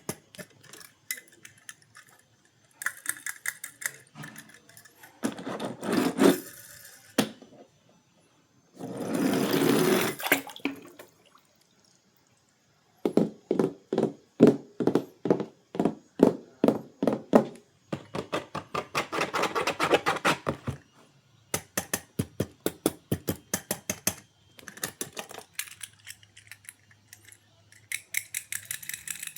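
Toy packaging being handled and opened: runs of rapid clicking, about four clicks a second, and several bursts of rustling that last a second or two each.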